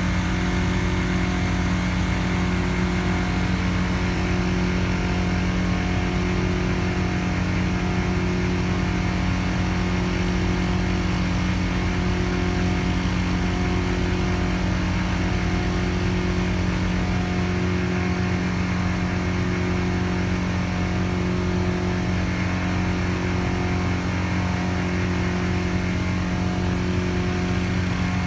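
An engine running steadily at constant speed, with a faint regular pulsing about every second and a half.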